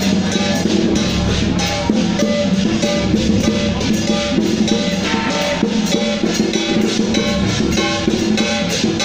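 Taiwanese temple procession music: drums and metal percussion playing a steady, dense rhythm, with short pitched tones that change pitch throughout.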